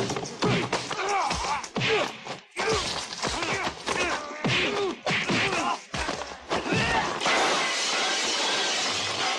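Martial-arts film fight sound effects: a rapid run of punch and kick hits with smashing and breaking crashes, mixed with shouts and grunts. About seven seconds in, the hits give way to a steadier wash of sound.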